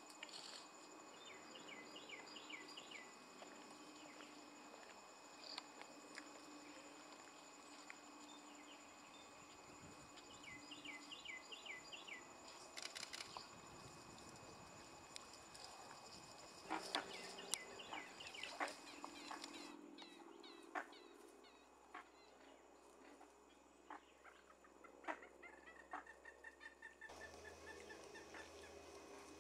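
A bird calling in quick runs of short, falling chirps, several times over, above a faint steady high drone of insects.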